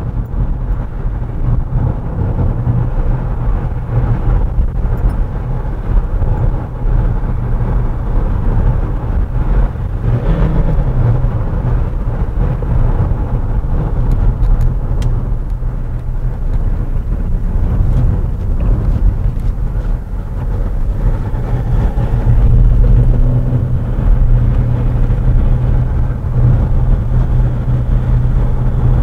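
In-cabin sound of a VW Jetta TDI being driven at road speed: steady rumble of its four-cylinder turbodiesel engine mixed with tyre and road noise. The rumble grows louder about two-thirds of the way through.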